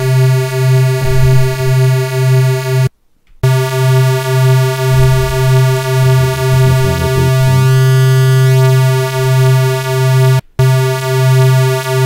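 Steady low square-wave tone from the FL Studio 3x Osc synthesizer plugin, swelling and dipping about twice a second as its oscillators beat against each other. It cuts out for about half a second roughly three seconds in, and again briefly near the end.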